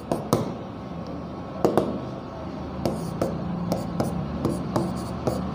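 Stylus tapping and sliding on the glass of an interactive touchscreen whiteboard as numbers are written: irregular light clicks, a few a second.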